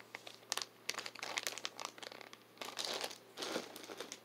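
Clear plastic zip-top bag crinkling and rustling as it is handled and sealed, in irregular bursts of small crackles and clicks.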